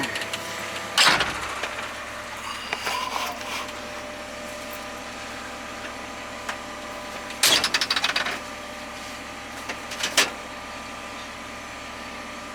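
Cat 320 excavator's diesel engine idling steadily. A sharp knock comes about a second in, a quick rattling run of clicks follows about two-thirds of the way through, and another knock comes near the end.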